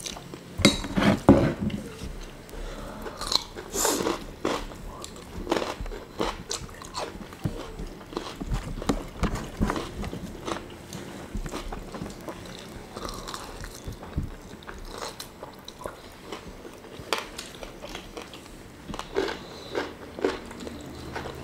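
Close-miked chewing and crunching as two people eat fried chicken, rice and raw vegetables, with irregular bites and wet mouth clicks.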